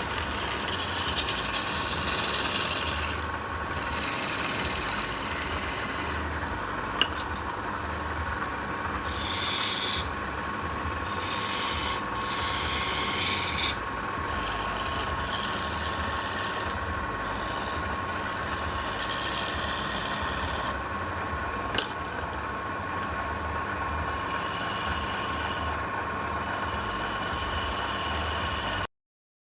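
Abrasive rubbing on wood, a steady scraping whose high hiss comes and goes in strokes, over a constant hum. There are two sharp clicks along the way, and it cuts off suddenly near the end.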